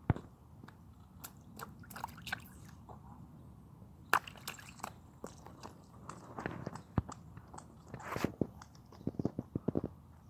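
A toddler's wet squeaker sneakers squishing irregularly with the steps, with a few sharp clicks and a quick run of short squishes near the end.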